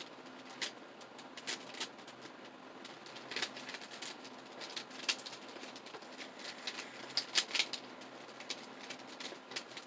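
Plastic twisty puzzle cube being turned by hand: irregular clicks and clacks as the layers snap round, in short flurries with gaps between them, a quick cluster of several clicks a little past the middle.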